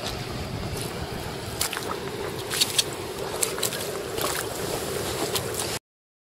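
Steady water and wind noise on the microphone, with scattered sharp splashes from a trout thrashing in shallow water. The sound cuts off abruptly near the end.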